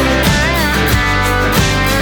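Background pop-rock song: guitar over a steady beat and bass, with a brief sung note about half a second in.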